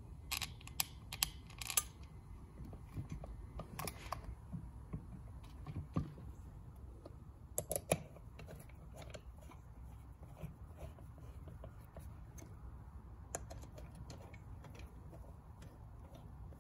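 Small metallic clicks and taps of a screwdriver working the screws on a Rochester Quadrajet carburetor's aluminium air horn. There are a few sharper clicks in the first two seconds and a short cluster about eight seconds in, with light ticks between them.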